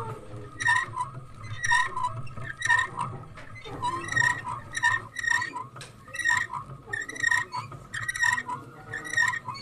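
Wooden hand loom clacking as silk is woven: short knocks about once a second, sometimes in quick pairs, each with a brief ringing tone.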